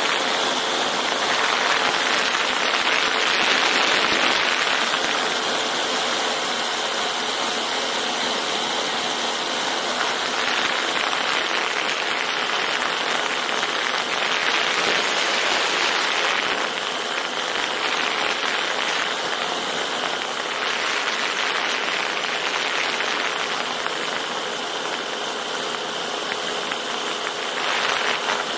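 Storch STOL aircraft in flight, its engine and propeller running steadily under a loud, even rush of wind on a camera mounted outside on the wing strut, with only a faint steady hum showing through.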